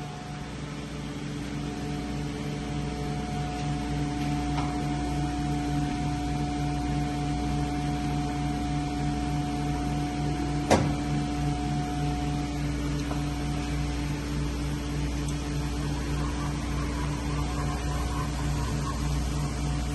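Mazak Integrex 200-III mill-turn CNC machine running its milling spindle: a steady mechanical hum with a held whine, getting louder over the first few seconds. One sharp click comes about eleven seconds in, and the whine shifts in pitch a little after that.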